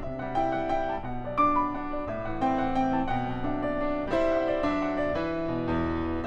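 Instrumental background music with a piano melody of struck notes over held bass notes.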